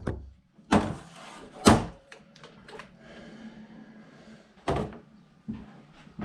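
Three loud knocks and thuds of objects being handled and set down, one just under a second in, one near two seconds and one near five seconds, with faint rustling between.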